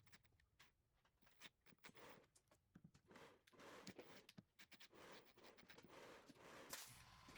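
Faint, scattered clicks and handling noises of small hand work, busier from about three seconds in: screws being reinstalled to hold an upholstered door panel's upper half.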